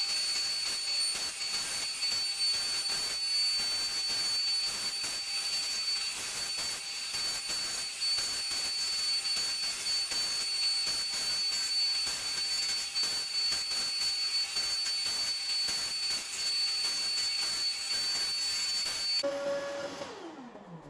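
Electric power tool working under load: a steady harsh hiss with a thin high whine. Near the end the load comes off, and the motor runs free and winds down with a falling pitch.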